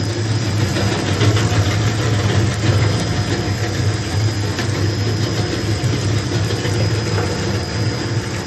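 Industrial fishing-net shredder running under load: a steady low motor hum, with the rotating cutter blades grinding through nylon fishing net fed into the hopper.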